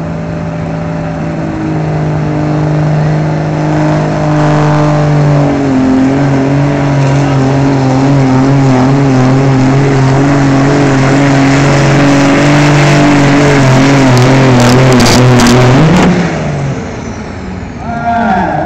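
Pickup truck engine running hard under full load while pulling a weight sled, a loud steady note that steps down in pitch twice and grows louder. About three seconds before the end there are a few sharp cracks, the engine note briefly rises and then falls away as the pull ends.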